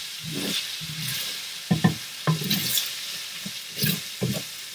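Seasoned ground turkey sizzling in a cast iron skillet while a plastic slotted turner stirs and scrapes through it in a series of short strokes. The burner has just been switched off, so the meat is sizzling on the pan's remaining heat.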